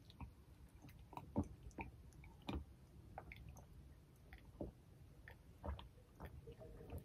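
Two people gulping and swallowing water from glass mugs, close to the microphone: soft, irregular swallow and mouth clicks.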